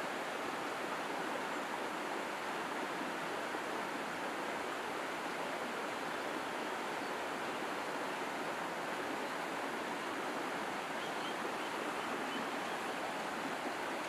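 Running water rushing steadily and evenly, with no change in level.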